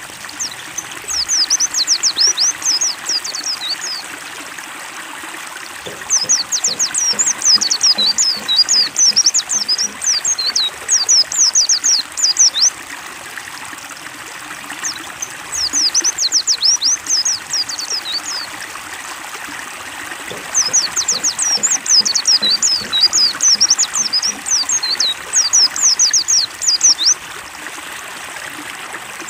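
White-eye (pleci) song: four bouts of rapid, high twittering, each a few seconds long, over a steady trickling stream of water.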